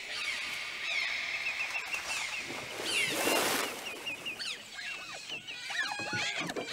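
High-pitched wild calls: a fast run of short repeated chirps and rising and falling whistles, with a brief noisy rush about three seconds in. From about five seconds in come strong, twisting squeals and chittering from captive otters in a wooden log box.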